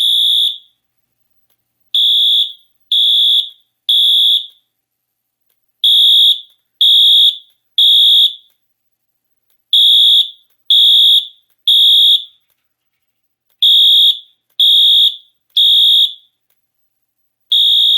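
Wheelock MT horn strobe sounding a fire alarm evacuation signal in the temporal-3 (code 3) pattern: three high-pitched beeps about a second apart, then a pause, repeating every four seconds.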